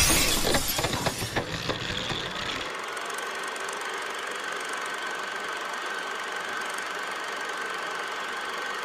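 Film projector sound effect running with a steady mechanical rattle and a faint steady high whine, under an old-film countdown leader.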